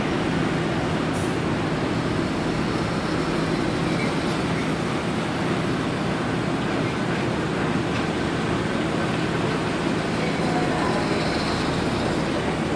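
Boeing 777-300ER's GE90 jet engines giving a steady roar with a low hum underneath, as the airliner decelerates along the runway after touchdown.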